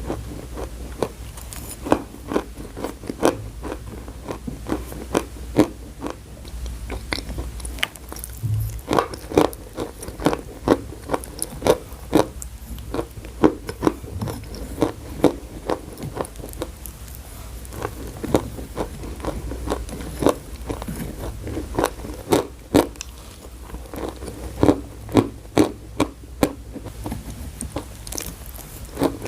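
A person biting and chewing chalk close to the microphone: many sharp, irregular crunches, some in quick clusters, with short pauses between them.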